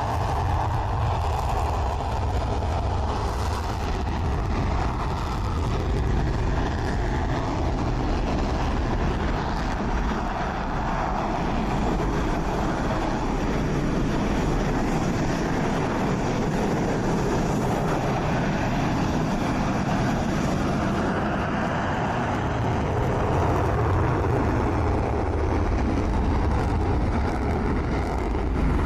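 Dassault Rafale fighter jets' twin M88 turbofan engines running, a loud steady rush with a deep rumble and a faint whine that drifts slowly in pitch.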